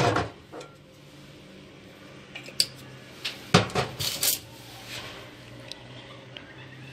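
Kitchen clatter of containers being set down and moved on a hard countertop beside a glass baking dish. There is a loud knock at the start, a sharp click about two and a half seconds in, and a burst of several knocks about three and a half seconds in.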